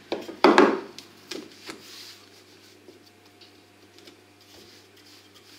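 Wooden rolling pin knocking against a stone worktop: two sharp knocks in the first second, then a few lighter taps and faint handling noise.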